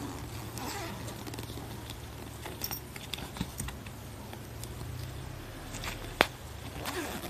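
Soft mesh pet carrier with a kitten inside being handled: light rustling and scattered small clicks, with one sharper click about six seconds in, over a steady low hum.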